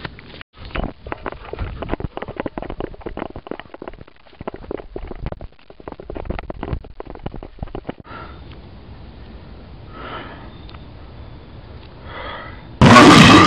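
Hurried footsteps crunching through dry leaf litter, a dense run of irregular steps that stops about eight seconds in. After a few seconds of quieter movement, a sudden very loud burst of sound lasts about half a second near the end.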